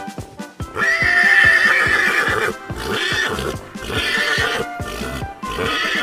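A horse neighing: one long whinny starting about a second in, followed by three shorter calls, over background music with a steady beat.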